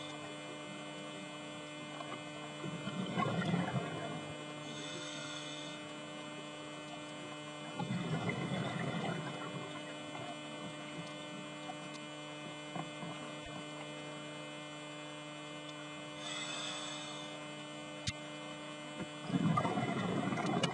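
Steady electrical hum with several fixed tones, under a scuba diver's breathing on a regulator: a short hiss of inhalation twice, and a bubbling rumble of exhaled air three times, the last and loudest near the end.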